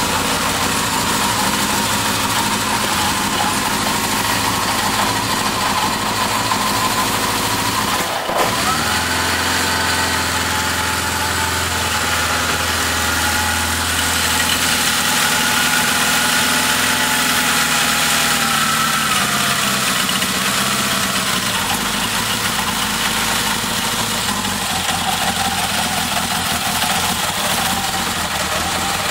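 Yamaha XS1100's air-cooled inline four-cylinder engine idling on a homemade MegaSquirt fuel injection setup that is not yet tuned. The running briefly dips about eight seconds in, then picks up again with a slightly higher pitch for a while.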